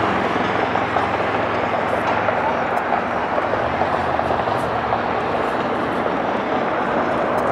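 Boeing 777-300ER's GE90-115B jet engines running for takeoff, a steady loud jet noise with no breaks.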